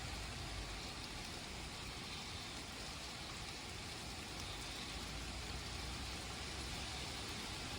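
Steady rain falling in a thunderstorm: an even hiss with a low rumble underneath.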